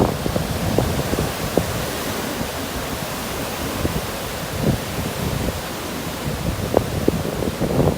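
Ocean surf washing on a beach as a steady rushing noise, with sea breeze buffeting the microphone in irregular low rumbles, a few sharper gusts about halfway through and near the end.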